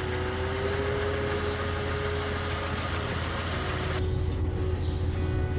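Buick Rendezvous engine idling steadily, with a steady tone over its low hum and no misfire heard after the repair.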